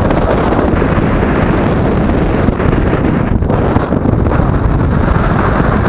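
Loud, steady wind rushing over the camera microphone, the airflow of a paraglider in flight.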